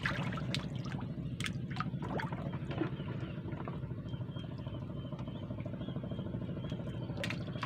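Water splashing and slapping as humphead wrasse (Napoleon wrasse) snatch food at the surface of a floating sea cage, with the splashes mostly in the first three seconds and one more about seven seconds in. A steady low motor-like drone runs underneath.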